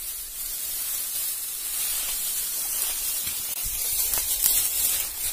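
Steady hiss with faint rustling of dry grass as a dog pushes its head through it and noses along the ground.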